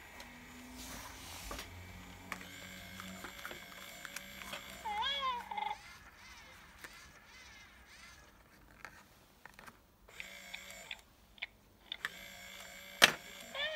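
Emotion Pets Cherry interactive plush cat toy giving an electronic meow from its speaker, a rising-and-falling cry about five seconds in and again at the very end. Between the meows there is a faint whir from its motors as the head and eyes move, and a sharp click near the end.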